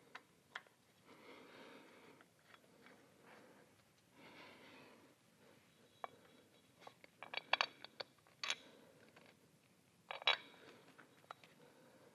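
Faint, scattered clicks and small metallic taps of a hand tool and fasteners being fitted into a motorcycle air cleaner backing plate by hand, with soft handling noise between. A quick cluster of clicks comes a little past halfway and one more sharp click a couple of seconds later.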